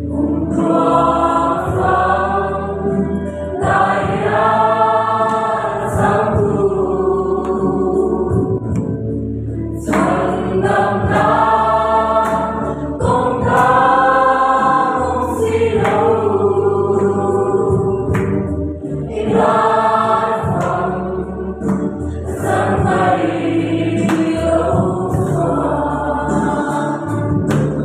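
A group of men and women singing a Christian worship chorus together, in sung phrases of a few seconds each with short breaks between them.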